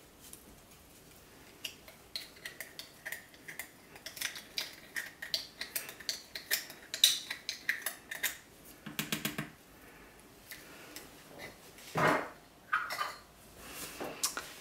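A utensil clinking rapidly against the sides of a container, several clicks a second, as colorant and fragrance are stirred into soap batter, followed by a few louder knocks near the end.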